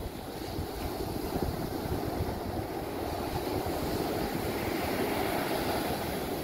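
Surf breaking and washing ashore, swelling to a peak a few seconds in, with wind buffeting the microphone as a choppy low rumble.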